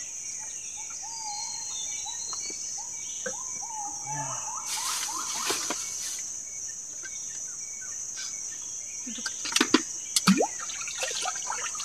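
Steady high-pitched chirring of insects, with a bird calling during the first few seconds. About five seconds in there is a brief hiss, and a few sharp knocks near the end are the loudest sounds.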